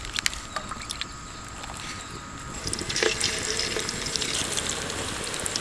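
Bread pakoda batter dropped by hand into hot oil in an aluminium pot. About three seconds in, the oil starts sizzling and crackling and keeps bubbling.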